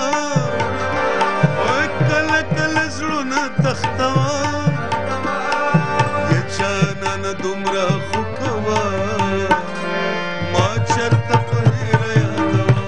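Instrumental break in a Pashto song: tabla drumming under a gliding melodic instrument line. The low drum strokes drop out briefly about ten seconds in, then come back.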